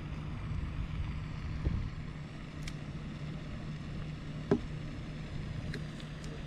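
Steady low engine hum, likely from machinery working nearby, with a sharp click about four and a half seconds in.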